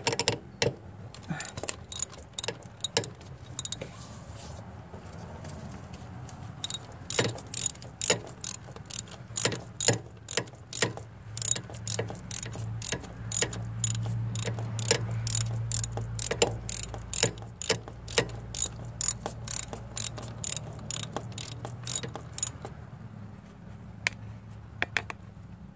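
Hand socket ratchet clicking in quick runs, about two clicks a second with short pauses, as a thermostat housing bolt on a 3.8 V6 is run down and tightened. A low steady hum runs underneath.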